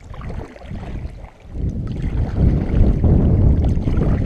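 Wind buffeting the microphone, a loud, gusting low rumble that swells sharply about a second and a half in.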